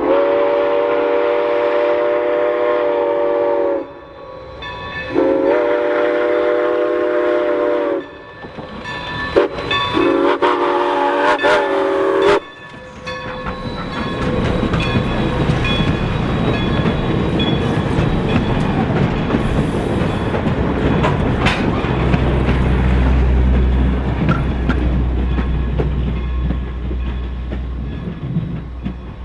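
Baldwin 2-8-0 steam locomotive No. 40's chime whistle blowing three long blasts with short gaps, sounded for a road grade crossing. Then a steady rushing noise of the train working past, deepening into a rumble about two-thirds of the way through.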